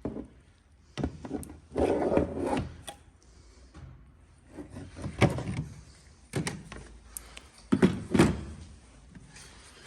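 Irregular knocks, thuds and scraping of hard objects being handled and set down, with a longer rubbing stretch about two seconds in and the loudest knocks near the middle and near the end.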